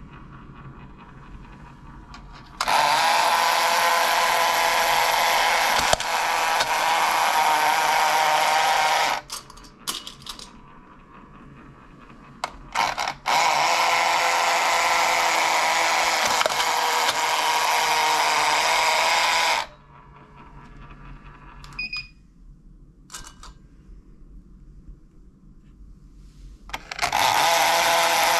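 Battery-operated tin bowling coin bank toy's electric motor and gear mechanism running in three steady runs of about six seconds each, as the bowler figure swings to send a coin down the lane. Between the runs come a few small clicks and a short metallic clink of coin handling.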